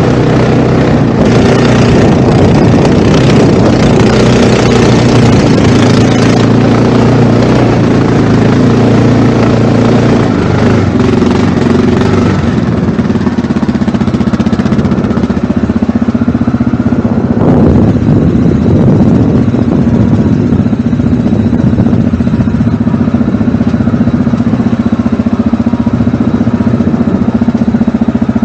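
ATV engine running under way, loud and working harder for roughly the first twelve seconds, then settling to a steadier, even drone. A short swell in the engine sound comes about two-thirds of the way through.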